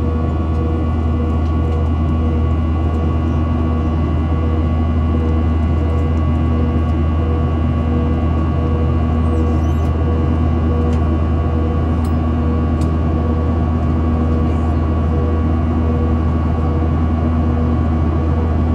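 Steady drone of a Boeing 737-800's CFM56-7B jet engines heard inside the cabin: a deep, even rumble with several steady whining tones over it, holding constant with no spool-up or change in thrust.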